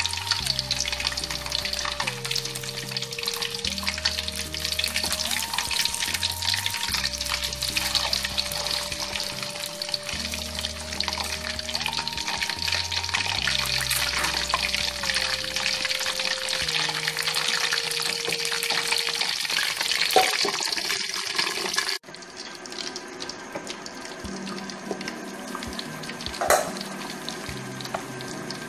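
Fish frying in hot oil: a steady, dense sizzle that cuts off abruptly about 22 seconds in. A fainter hiss follows, with one sharp click near the end.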